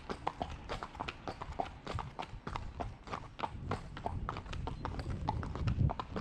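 Hooves of two horses, a KWPN gelding and the horse just ahead, clip-clopping on a paved sidewalk, several irregular strikes a second. A low rumble swells near the end.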